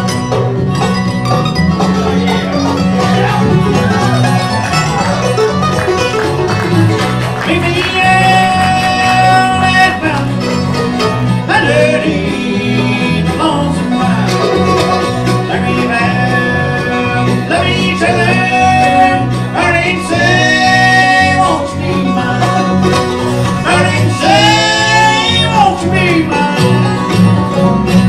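Bluegrass band playing a song: banjo and guitar over a steady bass, with a sung melody line coming in about eight seconds in.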